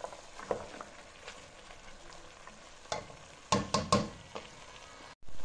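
Diced carrots, peas and chicken sizzling in fat in an enamelled pot as they are stirred with a wooden spoon. A few sharp knocks and scrapes of the spoon against the pot, with a cluster of them about three and a half seconds in. The sound cuts out briefly near the end.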